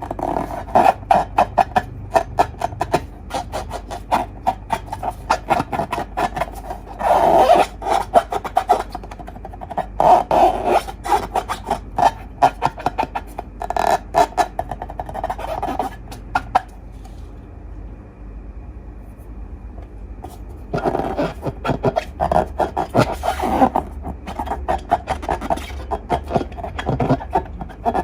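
Slime being squished and worked by hand: dense wet crackling and popping in irregular bursts, stopping for a few seconds about two-thirds through and then starting again.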